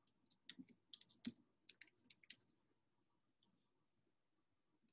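Faint typing on a computer keyboard: a quick run of key clicks that stops about two and a half seconds in.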